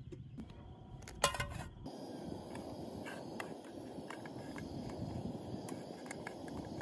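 Bread frying in butter in a camping frying pan on a gas stove: a steady sizzle and hiss, with light clicks of metal tongs and spatula against the pan. There is a short clatter of metal about a second in.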